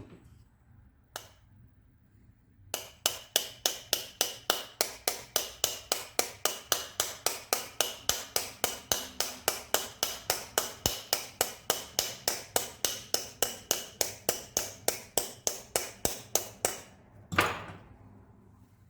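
A hammer tapping steadily on metal, about three ringing strikes a second for some fourteen seconds, working a ball bearing on the router's armature shaft. A single louder knock follows near the end.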